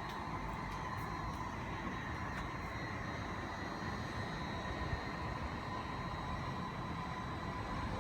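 A steady low rumble with a constant high-pitched hum over it, unchanging throughout.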